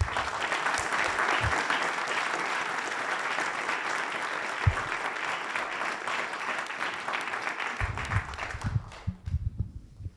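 Audience applauding at the close of a talk: a dense patter of many hands clapping that dies away near the end, with a few low thumps as it fades.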